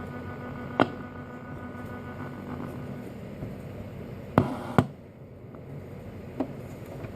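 Vintage JC Penney radio's speaker hissing with static from an AM band that has no station tuned in, broken by a few sharp clicks: one about a second in, two close together past the middle, and a faint one near the end.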